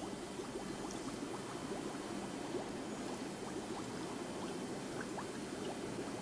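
Carbon dioxide bubbling steadily through water in a gas-washing flask: a continuous fast patter of small bubbles. The bubbling shows the gas flow, so the dose of gas can be controlled.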